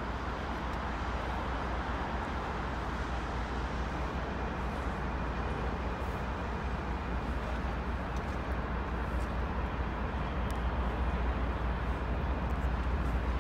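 Steady low rumble of commuter trains running in the station yard.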